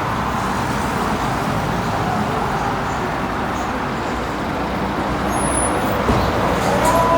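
Steady rumble and hiss of a moving vehicle. Near the end a whine of several tones rises in pitch and then holds.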